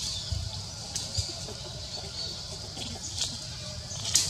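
Outdoor ambience: a steady high-pitched hum with a low rumble underneath, and a few brief sharp high sounds, the loudest near the end.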